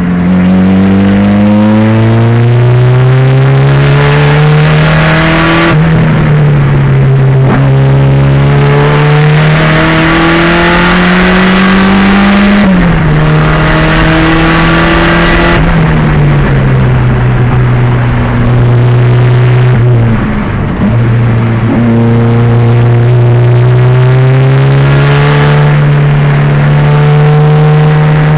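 1987 Pontiac Fiero race car's 2.0 L turbo engine running hard under load, its pitch climbing steadily through long pulls. It drops sharply twice around the middle at shifts or lifts, dips briefly in pitch and loudness about two-thirds of the way through, then climbs again.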